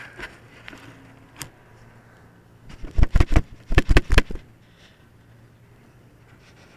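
A quick run of about eight sharp handling knocks and bumps, about three seconds in and lasting just over a second, as the discus-launch glider's fuselage is picked up off the grass and gripped, heard through the camera mounted on it. Otherwise only faint background.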